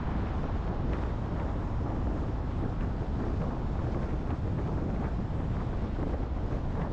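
Steady low rumble of a car on the move: road and tyre noise, with wind buffeting the GoPro's microphone.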